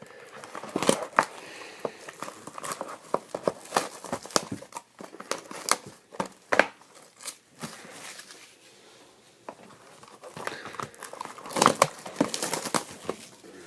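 Wrapping of trading-card packs crinkling and tearing as they are opened by hand: irregular crackles and snaps, thinning out in the middle and busiest again near the end.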